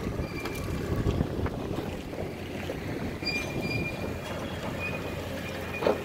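Wind buffeting the microphone over a steady low rumble, with a few faint, short high-pitched squeaks about halfway through.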